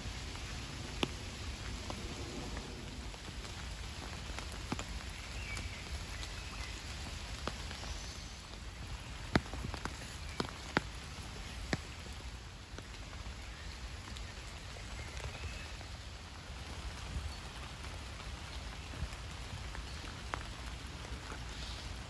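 Steady light rain falling on a pond's surface and the leaves around it, an even patter. Now and then single drops land close by as sharp ticks, several of them in quick succession about nine to twelve seconds in.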